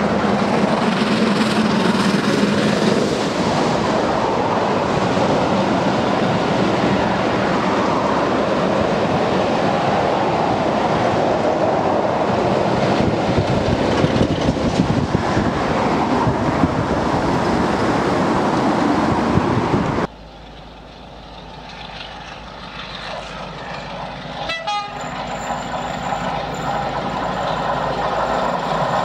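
Steam locomotive 45596 hauling a train of coaches past at speed, with a loud rushing clatter of wheels on the rails and a diesel locomotive on the rear. About two-thirds of the way through it gives way abruptly to a quieter diesel-hauled train approaching, growing steadily louder, with a run of rail clicks and a thin high ringing from the rails.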